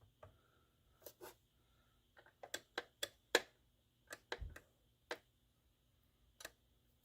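Metal parts of a tilt-telescope steering column clicking and tapping as the pivot hub is worked into place: about a dozen short, irregular clicks and one duller, low thump in the middle.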